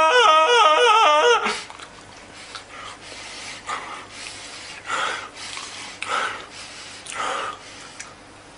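A man's loud, warbling, yodel-like wail with his mouth wide open, breaking off about a second and a half in. Then comes a run of heavy breaths, the loudest three about a second apart.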